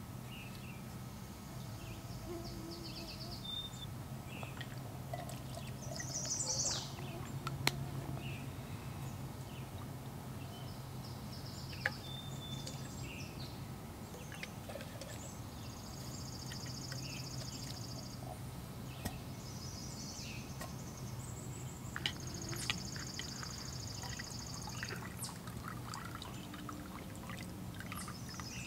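Small birds singing short, high, rapid trills several times over a steady low hum, with a few sharp clicks and taps from camp cooking gear being handled. Near the end, water is poured from a bottle into the pot.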